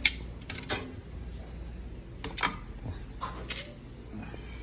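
Metal tongs clinking and knocking against a stainless steel steamer pot and its wire rack: a few separate sharp knocks, the loudest right at the start.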